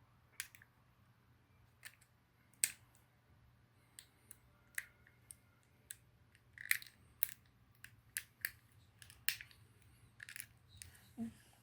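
Scattered sharp clicks and taps from hands handling a toy and its plastic packaging while unboxing, irregular and quiet, a little busier in the second half.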